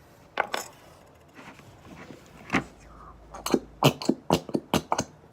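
Clicks and knocks from handling the slime-making things, a glue bottle against a mixing bowl, with a few scattered knocks at first, then a quick run of taps about four a second in the last two seconds.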